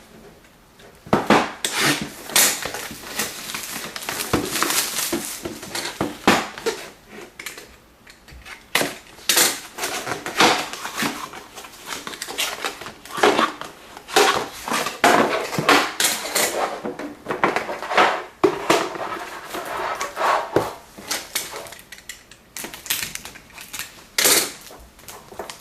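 A sealed trading-card box being opened by hand: crinkling and tearing of plastic wrap and packaging, with many irregular clicks and knocks as the cardboard and contents are handled.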